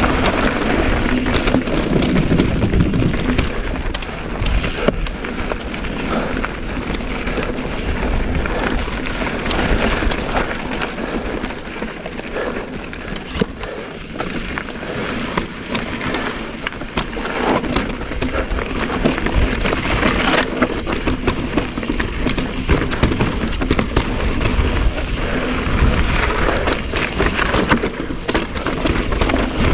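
Mountain bike riding down a rocky trail: tyres crunching and rolling over rock and gravel, with many sharp knocks and rattles from the bike over the bumps, and a low rumble of wind on the microphone.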